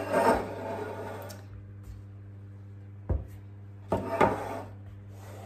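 Large paper muffin cases rustling and crinkling as they are pulled apart and set down on a kitchen worktop, with a light knock about three seconds in and two louder crinkles just after.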